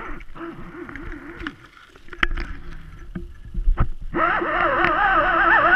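Underwater sound picked up through a GoPro's waterproof housing as it is hauled up on a fishing line past kelp. There are a few sharp knocks against the weed, then a louder, wavering whine sets in about four seconds in and holds on.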